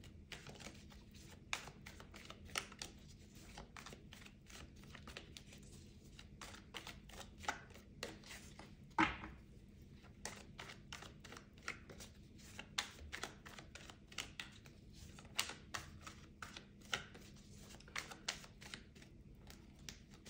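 A deck of tarot cards being shuffled by hand: faint, irregular clicks and flicks of the cards, with a louder one about nine seconds in.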